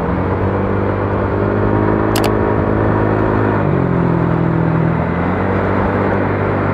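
Honda Click scooter's single-cylinder engine running through an aftermarket Akrapovic exhaust pipe, revved and held, then dropping back to idle about four seconds in.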